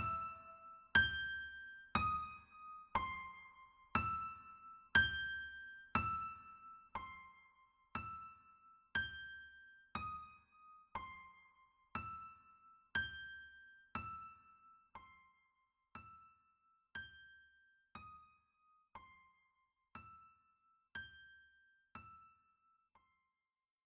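Music: a slow line of single electric-piano-like keyboard notes, about one a second, each ringing out and dying away, the whole line growing gradually quieter as the piece fades out.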